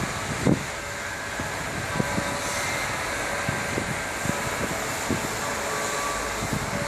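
Steady outdoor rush of city traffic, with wind gusting and thumping on the microphone.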